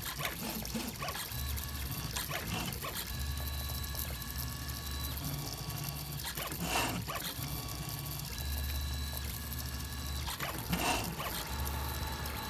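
3D printer's stepper motors whining as the print head moves, the hum and whine switching on and off and changing pitch every second or two with each new move. A couple of short knocks are heard, about seven and eleven seconds in.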